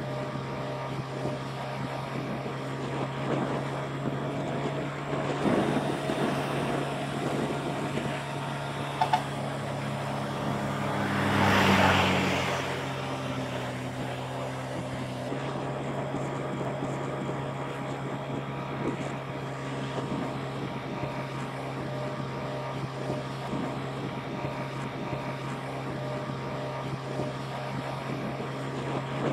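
Motorbike engine running steadily at cruising speed, with road and wind noise around it. About twelve seconds in, a louder rushing noise swells and fades, and a little before that there are two brief sharp blips.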